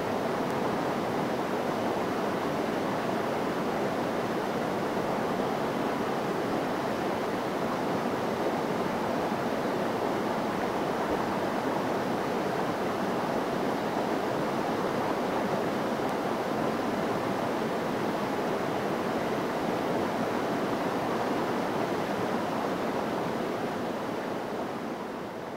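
Steady rushing of river water over rapids, an even noise that fades out near the end.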